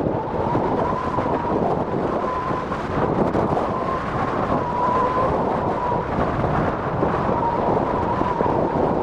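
Boeing 747-400F jet engines running loud, a deep roar with a steady high whine over it.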